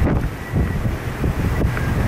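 Storm wind gusting hard and buffeting the microphone, over the steady hiss of heavy, wind-driven rain.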